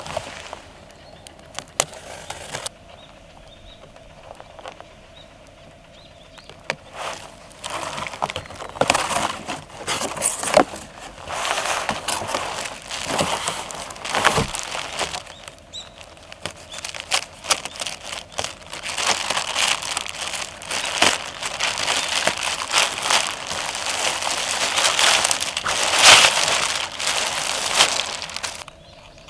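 Plastic wrap crinkling and cardboard rustling and scraping as a cardboard box is opened and a plastic-wrapped tent pulled out. There are a few sharp clicks near the start, and the crinkling grows busier and louder through the second half.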